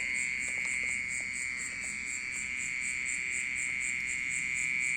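A hidden insect singing from the soil of a plant pot: a steady, unbroken, high-pitched buzzing trill that the uploader likens to a loud water pump.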